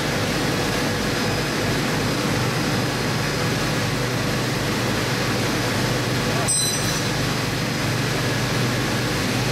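Steady factory machinery hum and rumble, with one sharp metallic clink about six and a half seconds in.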